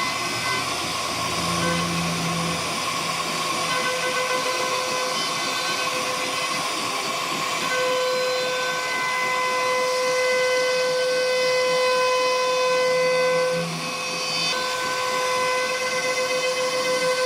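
CNC router spindle whining steadily as the bit cuts wood, over a constant hiss. Its steady tones come and go a few times.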